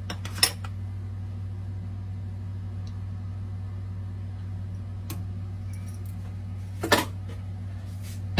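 A steady low hum, broken by two sharp clicks of a hand-held garlic press being handled, one just after the start and one near the end.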